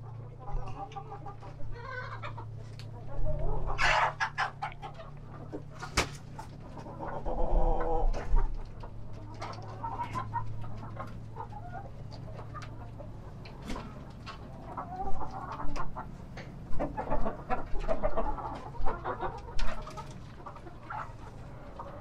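Laying hens clucking in bouts. Light clicks come throughout as eggs are gathered from the nest boxes into a wire basket.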